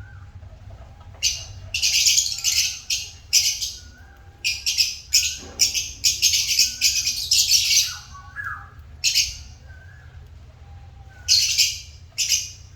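African lovebirds calling with shrill, harsh chirps in quick clusters separated by short pauses, over a steady low hum.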